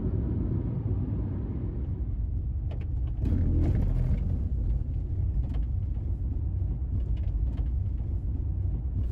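A car driving, heard from inside: a steady low rumble of engine and tyre noise. It gets a little louder about three seconds in, as the road turns to gravel, with a few faint ticks.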